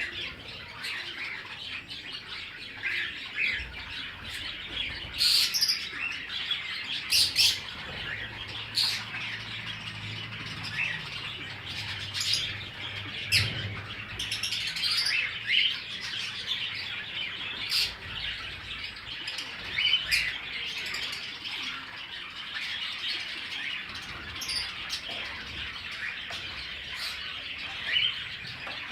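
A flock of small cage birds chattering continuously, with loud sharp chirps standing out every few seconds.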